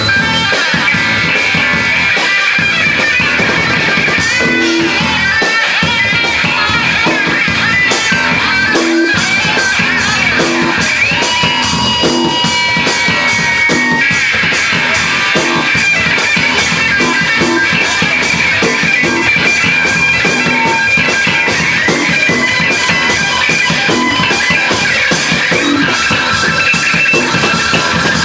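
Live instrumental rock from a small band of electric guitar, electric bass and drum kit, loud and steady, with long held high notes over the playing.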